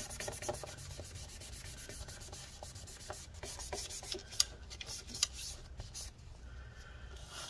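A paper towel wiping and rubbing on the metal battery bay of a MacBook Pro case, drying up rubbing alcohol and dissolved battery-adhesive residue, in many quick scrubbing strokes. A couple of sharper ticks come about halfway through.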